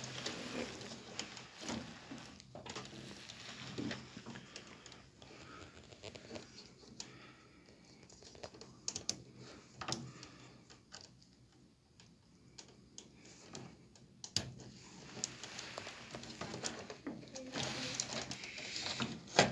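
Small plastic clicks and rustling as multi-wire harness connectors are handled and pushed onto the terminals of a washing machine's electronic control board.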